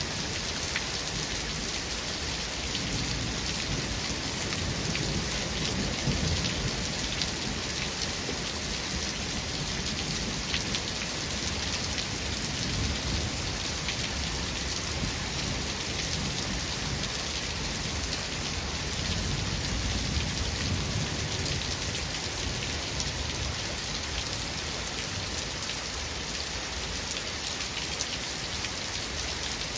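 Steady rain falling, a dense even hiss of drops, with low rolling thunder that swells and fades a few times.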